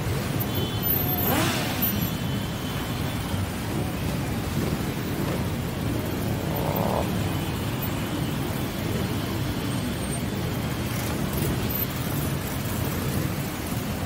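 Motorcycle engines running in a slow parade, a steady low rumble, with one engine note falling in pitch about a second and a half in.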